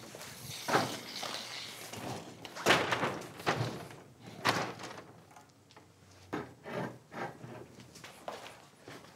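Knocks and thuds of a large white panel and a desk lamp being handled, with the lamp set down on a wooden table, and footsteps on a wooden floor. Several separate knocks, the loudest about three seconds in.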